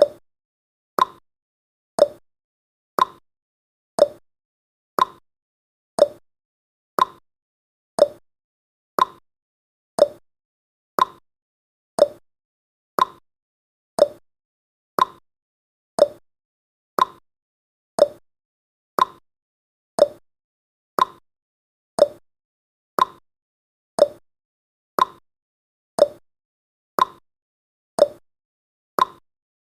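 Countdown timer's ticking sound effect: one short, sharp tick every second, alternating slightly higher and lower in pitch like a clock's tick-tock.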